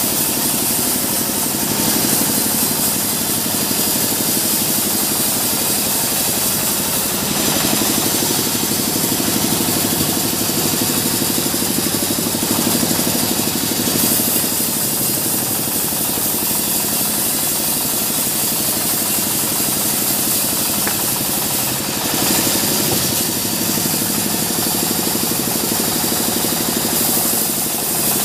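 Sawmill band saw running and ripping a waru (sea hibiscus) log lengthwise: a steady, loud mechanical drone with the hiss of the blade in the wood, swelling a few times as the cut goes on.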